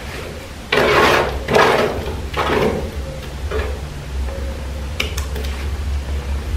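Trowel scraping and spreading perlite plaster on a wall in four strokes, the first two loudest, followed by a few light clicks about five seconds in, over a steady low hum.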